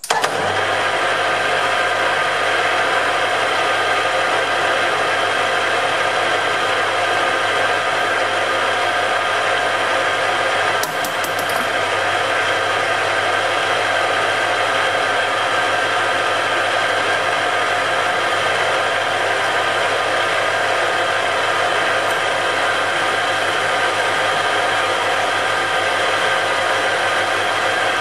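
Metal lathe switched on and running steadily, its motor, gearing and spinning four-jaw chuck making a constant whirring hum, while a drill bit in the tailstock bores into the end of the workpiece.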